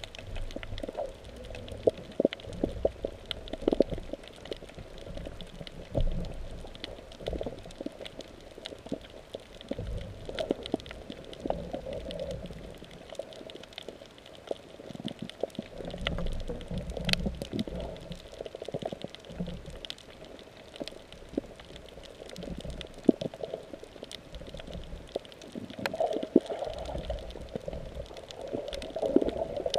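Muffled underwater sound heard through a GoPro camera's waterproof housing: water sloshing and gurgling, with irregular low rumbles and scattered sharp clicks.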